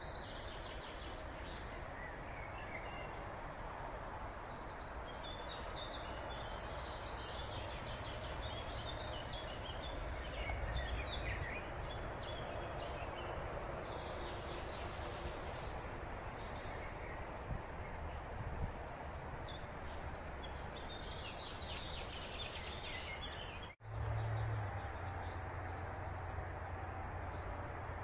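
Woodland ambience: small birds chirping now and then, high-pitched, over a steady hiss and a low rumble. A little before the end the sound drops out for an instant, and afterwards the low rumble is louder.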